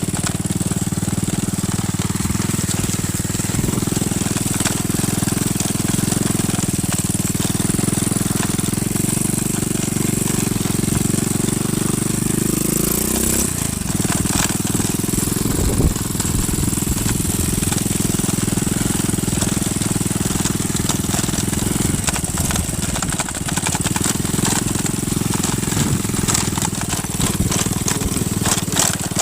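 Small motorcycle engine running steadily while riding, its note changing about halfway through.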